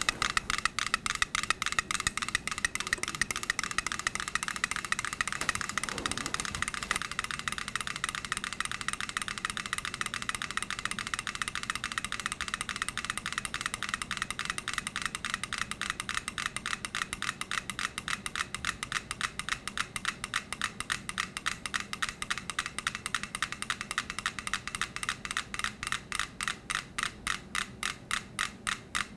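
Five clockwork pendulum metronomes ticking together on a board that rolls on two drink cans. At first the ticks are scattered and out of step. Over the stretch they draw together, and near the end they fall as single, evenly spaced ticks: the metronomes are locking into sync through the shared swaying board.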